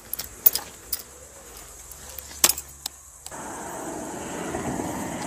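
Several sharp clicks and knocks, then, about three seconds in, a steady rushing noise sets in suddenly and runs on.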